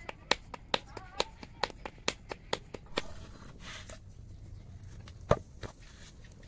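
Flatbread dough being patted flat between bare palms: even slaps about two a second that stop about three seconds in. A single louder knock follows a little after five seconds.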